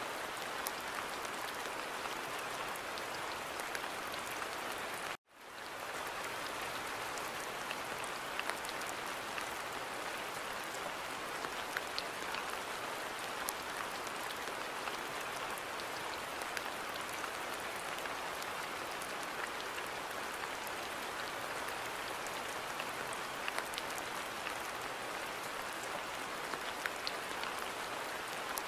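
Steady rain falling in a garden: an even hiss with many scattered sharp drop ticks. About five seconds in, the sound cuts out for an instant and swells back within about a second.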